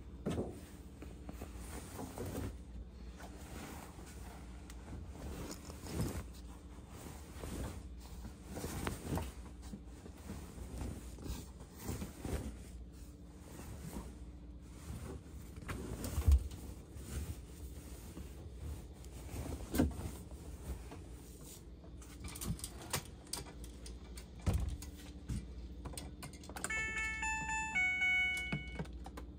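Bedding being stuffed into a Maytag Bravos MCT top-load washer: fabric rustling with irregular thumps, the loudest a little past halfway. Near the end comes a quick run of short electronic beeps at different pitches as the washer's cycle dial is turned.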